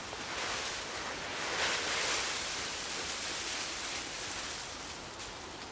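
Dead leaves poured out of a fabric bag onto a heap of leaf litter, a rushing rustle that swells about a second and a half in and slowly dies away.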